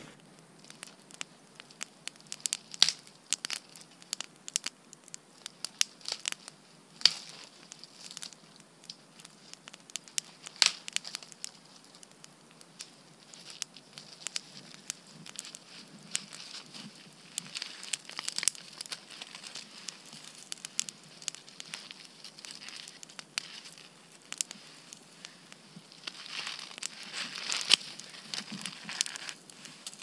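Small wood campfire that has burned low, crackling with irregular sharp snaps and pops. Near the end there is a denser stretch of crunching and rustling.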